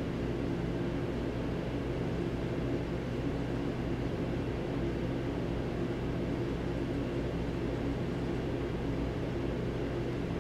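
Steady machinery hum from a stationary sleeper train idling at the platform, with a low, even drone that does not change.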